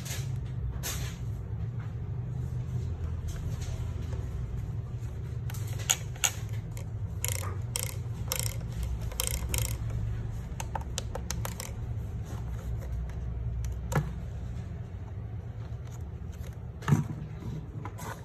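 Small plastic clicks and taps from a pistol-grip RC car transmitter being handled and turned in the hand, thickest in the middle, over a steady low hum. A few sharp knocks come through, the loudest near the end.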